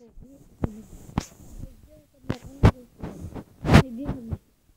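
Handling noise: a hand bumping and rubbing against the recording device close to its microphone, giving about six irregular thumps, with a child's voice humming faintly between them. The sound cuts off suddenly near the end.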